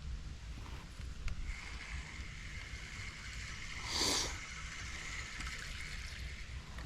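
Creek water running steadily, with one brief louder swish about four seconds in.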